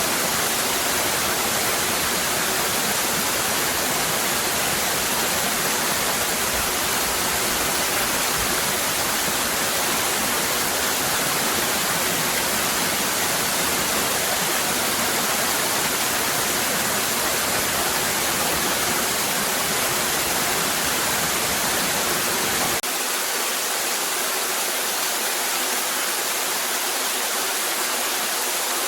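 Cascading waterfall: a steady, even rush of falling water. About three-quarters of the way through, the deep low rumble under it cuts out abruptly while the rush carries on.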